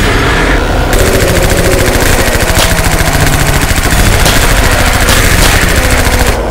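Rapid automatic-gunfire sound effect standing in for the Nerf blaster firing: a fast, unbroken stream of shots that starts about a second in and stops shortly before the end.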